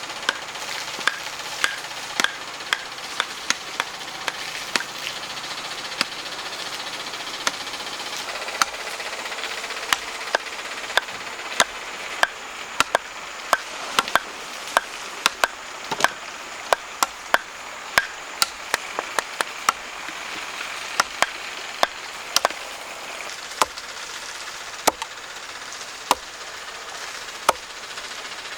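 Wood being chopped or hewn with a hand tool: sharp strikes at an irregular pace, coming faster after a few seconds, over a steady hiss.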